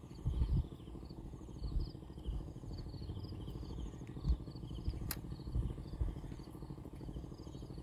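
Low rumble and irregular bumps on the phone's microphone, with a sharp click about five seconds in. Insects chirp faintly in short repeated trills behind it.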